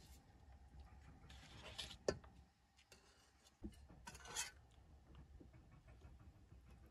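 Quiet handling of cookware: a couple of brief scrapes and rubs, with a sharp click about two seconds in and a knock shortly after.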